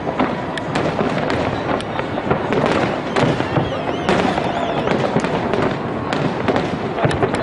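Large fireworks display: a dense, continuous run of bangs and crackling bursts, with a few short wavering whistles about halfway through.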